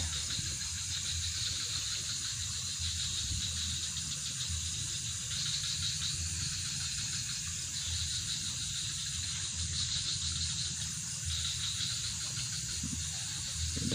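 Night chorus of insects, crickets among them: a steady, high chirring with a pulsing layer that comes and goes.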